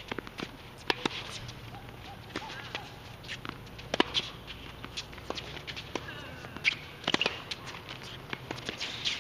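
Tennis rally on a hard court: sharp racket-on-ball strikes and ball bounces going back and forth, the loudest a forehand hit about four seconds in, with the players' running footsteps on the court between shots.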